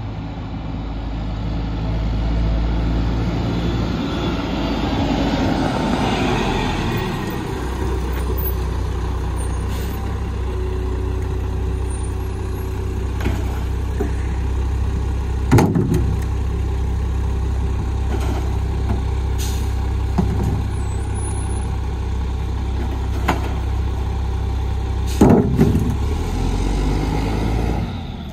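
Mack MR rear-loader garbage truck pulling up with a hiss of air brakes, then idling steadily while recycling is tipped by hand into its rear hopper. There are two loud crashes of recyclables landing, about halfway through and near the end, with smaller knocks between.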